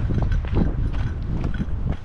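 Wind buffeting the microphone in a heavy low rumble, with a run of footsteps knocking and scuffing on the trail.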